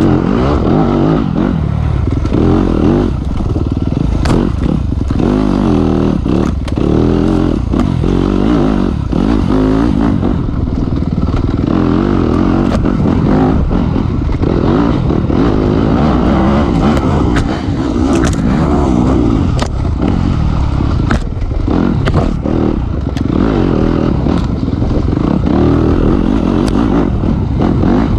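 Dirt bike engine running hard, its revs rising and falling as the rider works the throttle along the trail. Scattered clatters and knocks come from the bike over bumps.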